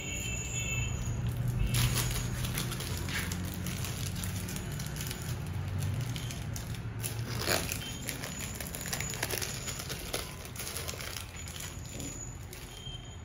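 Irregular crinkling and crackling, with a sharper crack about seven and a half seconds in, over a low steady hum.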